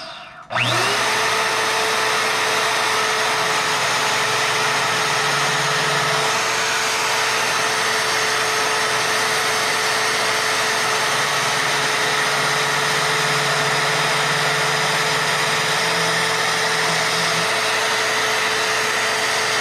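Drill press motor starting up with a rising whine about half a second in, then running steadily and loudly while drilling holes in steel pieces for plug welds.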